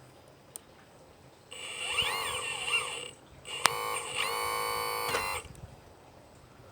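Electric motor of a radio-controlled model whining. Its pitch rises and falls for about a second and a half, then a click is followed by a steady high whine for about two seconds before it stops.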